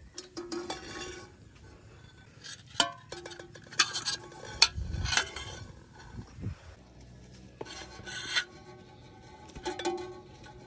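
Metal camping pots knocking, clinking and scraping against each other and against the metal hooks of a hanging rack as they are hung up: several bursts of clatter and rubbing, one knock ringing briefly.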